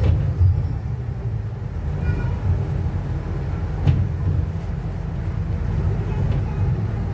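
Natural-gas Scania double-decker bus driving along, heard from inside on the upper deck: a steady low engine and road rumble, with a short sharp knock about four seconds in.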